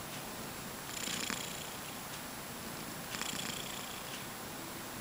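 Domestic cat snoring in its sleep: two slow, airy breaths about two seconds apart.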